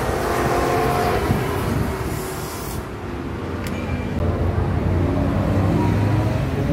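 Sports car engines accelerating past on a street, one after another, the sound rising and falling in pitch; the loudest pass comes in the last couple of seconds.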